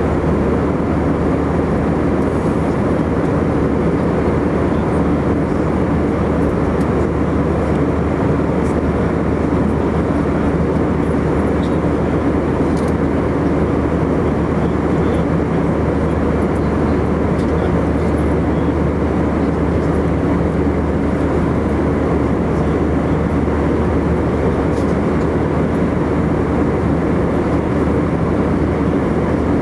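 Steady cabin noise inside an Airbus A319-115 in flight: the constant drone of its CFM56 jet engines and rushing airflow, with a low steady hum underneath.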